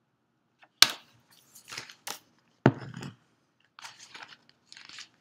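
Handling of a hardcover picture book: two sharp knocks, about a second in and near the three-second mark, with short papery rustles as the page is turned.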